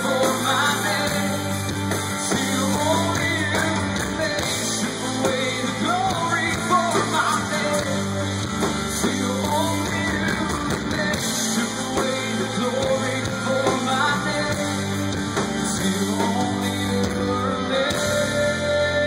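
Christian rock band playing live through a stage PA: drums, bass and guitars, with a voice singing over them.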